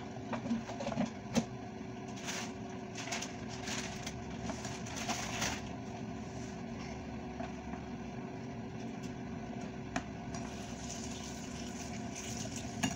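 A steady mechanical hum, like a kitchen appliance or fan running, under short clinks and scrapes of a spoon and cup against a ceramic bowl of batter. The clinks come thickest in the first five seconds, with one more sharp click about ten seconds in.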